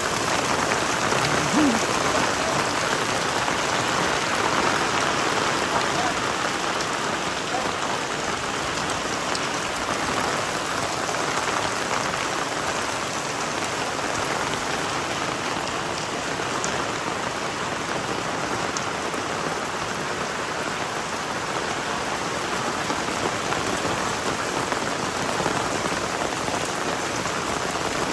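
Heavy rain falling steadily, a dense, even downpour on the ground and surfaces.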